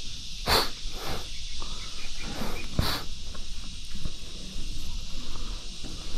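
Insects chirring steadily, with footsteps scuffing and scraping on soft, loose soil during a steep descent; the loudest scrapes come about half a second and about three seconds in.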